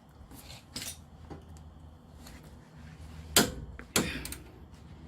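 Click-type torque wrench set to 75 tightening a sway bar end link nut: a few faint clicks, then two sharp metallic clicks about half a second apart as the wrench reaches its setting.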